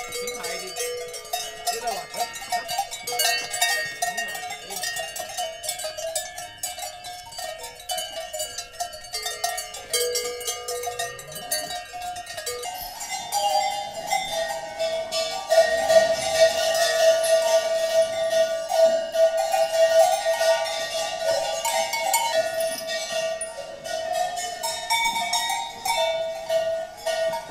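Many cowbells on a moving herd of dairy cows, clanking and ringing irregularly at several different pitches.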